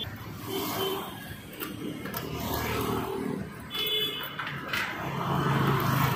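Key and latch of a motorcycle fuel filler cap clicking as it is unlocked and flipped open, over street traffic noise. There is a short high beep about four seconds in, and a low engine hum grows louder near the end.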